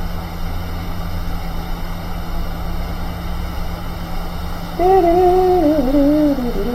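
Steady low hum and hiss of running bench equipment. About five seconds in, a person hums a long note that wavers and falls in pitch.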